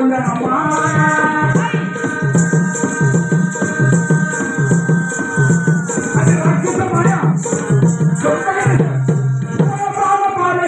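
Live Telugu folk music: a long held note for about five seconds, then more singing, over drum beats and the constant jingle of ankle bells or similar rattles.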